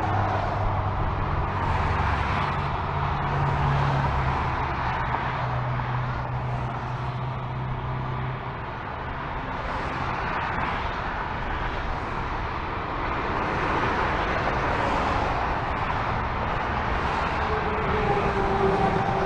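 Steady multi-lane interstate freeway traffic: a continuous rush of tyre and engine noise from cars passing below. A heavy truck's low engine drone fades out about eight seconds in.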